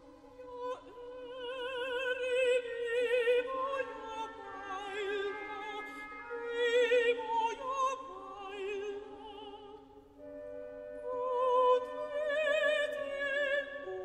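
Mezzo-soprano singing a sustained classical song line with wide vibrato over sustained orchestral accompaniment. The voice pauses briefly about ten seconds in and starts a new phrase.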